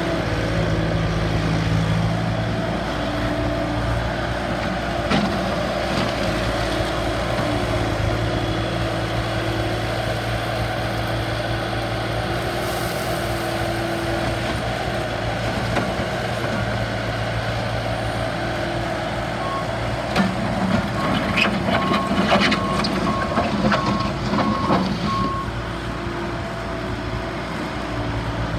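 Bobcat S300 skid steer loader's diesel engine running steadily. About twenty seconds in, its backup alarm beeps for about five seconds, roughly two beeps a second, with metal clanks and rattles from the machine at the same time.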